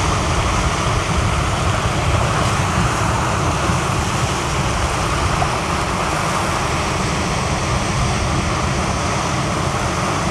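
Wind rumbling steadily on the microphone over surf washing and breaking against the rocks of a stone jetty.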